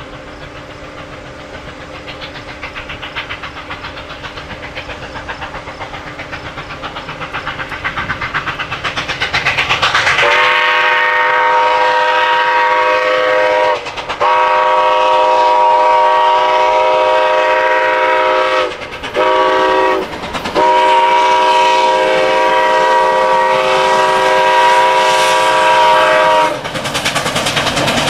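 Steam locomotive approaching, its running noise pulsing and growing steadily louder, then its chime whistle sounding the long, long, short, long grade-crossing signal.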